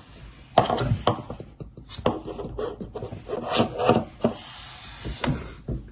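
Breathy, stifled laughter in short, irregular bursts, starting about half a second in.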